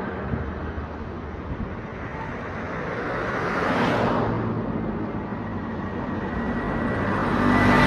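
Street traffic: vehicles passing close by, one swelling up and fading about halfway through and another building near the end, over a steady engine hum.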